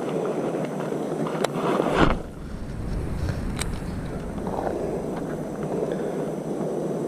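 Steady rushing of flowing creek water, with wind buffeting the microphone from about two seconds in and a couple of sharp clicks.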